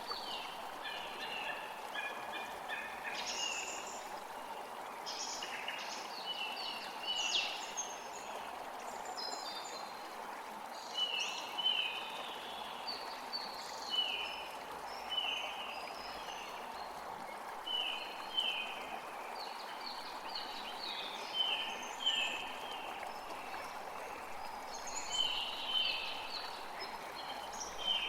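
Several songbirds singing and chirping over a steady rushing forest background. Through the middle stretch one bird repeats a short falling call about once a second.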